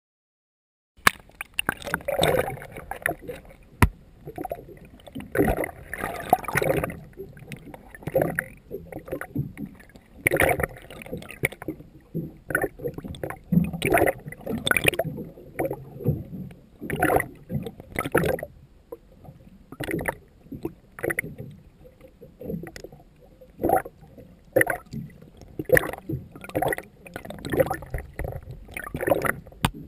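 Water sloshing and gurgling against a GoPro Hero 2 in its waterproof housing just below the surface, in irregular surges every second or so, starting about a second in.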